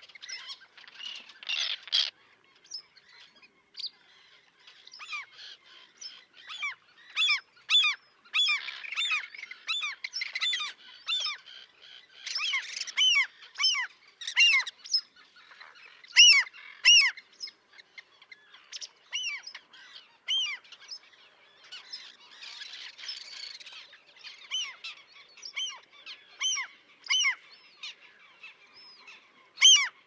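Common terns calling at a nesting colony with downy chicks: a quick, continuous string of short, sharp calls that drop in pitch, several birds overlapping.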